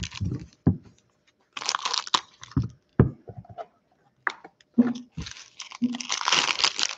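Foil wrapper of a football trading-card pack being torn and crinkled, in a burst about a second and a half in and again from about five seconds in, with a few light clicks and taps between.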